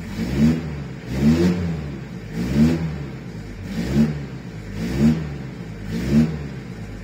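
Iveco Daily 35-8 diesel engine revved in about six short blips, each pitch rising and falling back, heard from inside the cab through a custom-made exhaust that is only rigged together. There is little boom in the cab.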